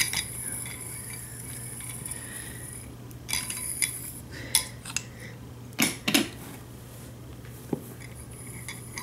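Wooden toy train cars being handled on a marble slab: scattered sharp clicks and taps as the wheels are set down and the magnetic couplers knock and snap together, a few of the louder ones in the middle.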